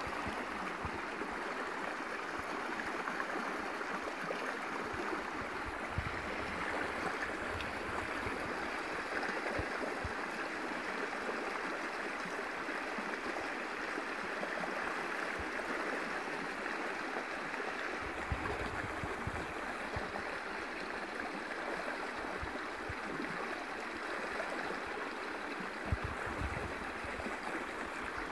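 Shallow stream running over a rocky bed: a steady rush of flowing water. A few brief low bumps sound through it.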